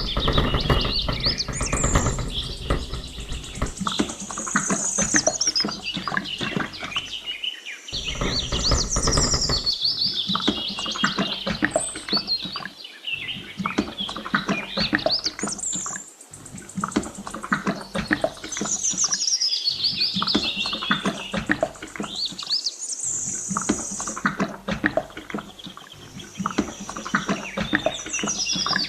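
Birds chirping and tweeting in high rising and falling phrases that recur every few seconds, over many short clicks and taps.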